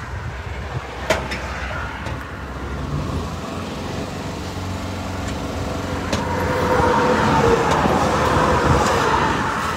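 Volkswagen combi van driving along the road: steady engine and road noise that grows louder in the second half, with a light knock about a second in.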